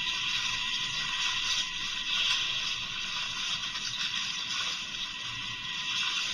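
Ultra Replica Orb Ring toy's small speaker playing a steady hissing, rushing sound effect.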